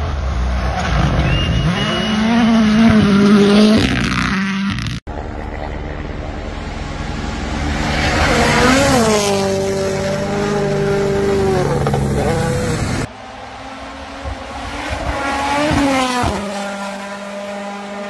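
Rally cars passing at speed one after another, their engines revving high and dropping sharply at each gear change, in about three separate passes.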